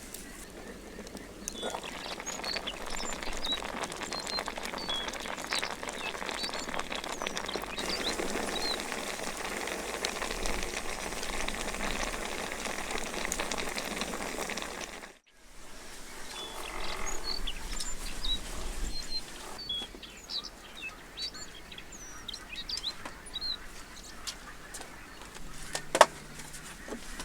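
Birds chirping over a steady hiss of background noise, with a short break midway and a single sharp click near the end.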